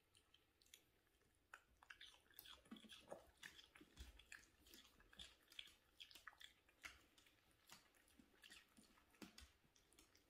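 Long-haired Chihuahua chewing and crunching a piece of cucumber: faint, irregular crunches and clicks of its teeth on the cucumber.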